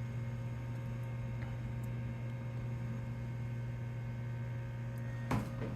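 Steady hum of a powered-on 1996 BeBox computer, its power supply and vent fan running. A short knock sounds about five seconds in.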